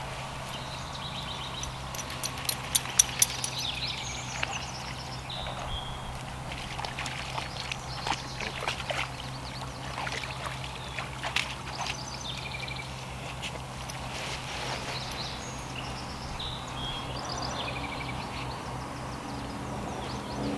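Gear being unloaded from a canoe: knocks and clatter, the loudest a quick cluster of sharp knocks about two to three seconds in, with a few more scattered after. Birds chirp in the background over a steady low hum.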